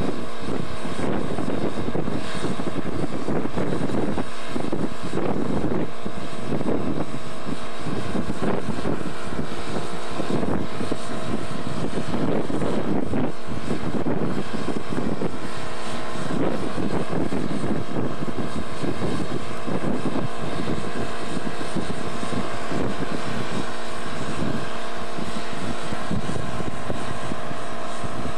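Diesel engine of a railroad track-maintenance machine running steadily, with a constant hum over an uneven low rumble.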